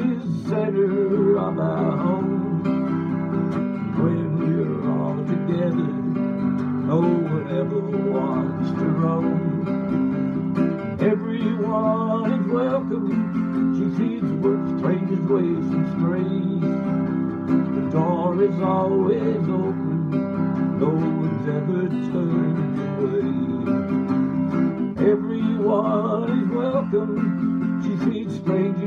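Hummingbird Pro acoustic guitar strummed in a steady country rhythm, with a melody line over the chords.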